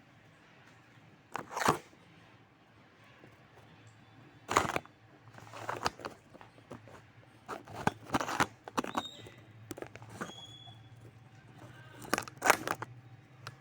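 Handling noise of a nylon tactical belt and its buckle being worked by hand: several separate bursts of rustling and clicking, with two brief high squeaks in the middle.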